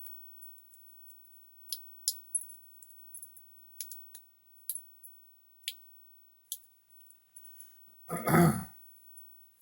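Scattered small clicks and taps of small parts being handled and fitted together. About eight seconds in, a short loud throaty vocal noise from the man cuts across them.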